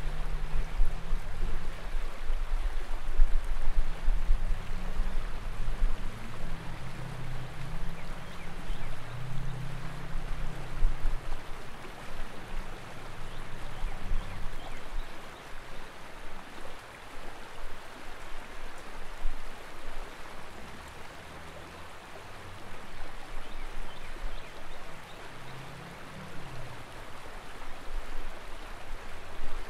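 Steady rushing of flowing water, like a shallow river running over rocks, with an uneven low rumble underneath that is stronger in the first half.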